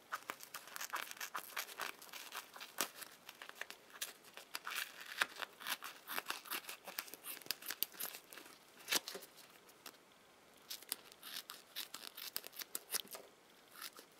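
Scissors cutting through a slow-rise foam squishy toy bun with a shiny coating, a quick run of crisp, papery snips and crackles. They pause for about a second roughly ten seconds in, then start again.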